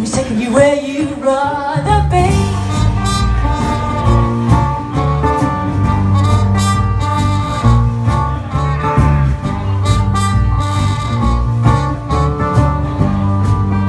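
Live band's instrumental break: a trumpet plays a sustained lead melody over strummed acoustic guitars and a steady drum-kit beat.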